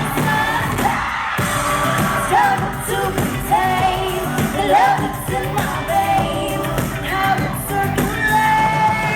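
Live pop concert: a female vocal group singing over loud backing music, with held notes and sliding vocal runs.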